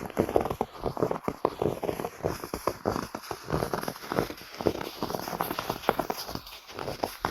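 Footsteps crunching in snow at a steady walking pace, each step a short crisp crunch. The sound is mixed as 8D audio, moving around the listener's head.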